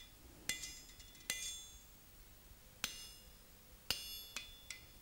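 Blacksmith's hand hammer striking a steel punch on hot iron over an anvil, marking bolt-hole positions: about six sharp metallic strikes at uneven intervals, several with a short ring.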